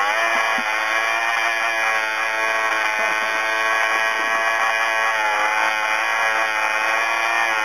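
Two-stroke snowmobile engine running while the sled stands still, smoking heavily. The note holds steady, dipping briefly in pitch just after the start and again about two-thirds of the way through.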